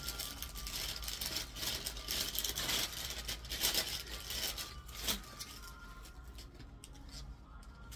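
Rustling and handling noise of garments being picked up and unfolded: a run of soft crinkles and taps that thins out and grows fainter after about five seconds.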